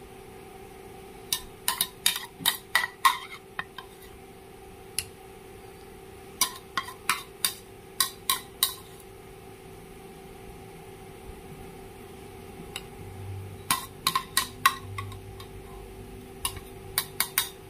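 Metal spoon clinking against clam shells and the sauce bowl in quick bursts of taps while sauce is spooned onto the clams, over a faint steady hum.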